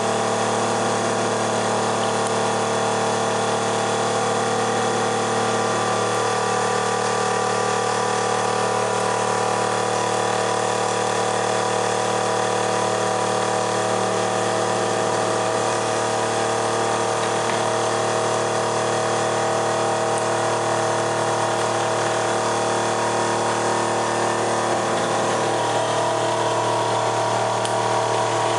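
Electric drive motor running steadily with a car alternator coupled to it, a constant mechanical hum with several fixed tones over a whirring hiss.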